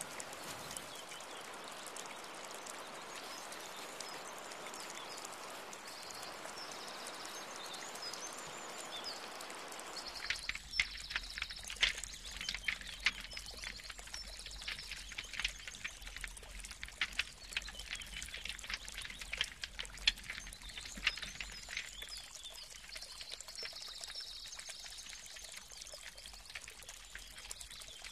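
A steady rushing hiss for about ten seconds, then a wood fire crackling with many sharp, irregular pops and brief high whistling tones.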